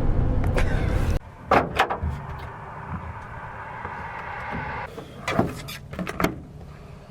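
Car cabin road rumble that cuts off abruptly about a second in, followed by a few sharp clunks and knocks like car doors being opened and shut, with a steady hiss in between.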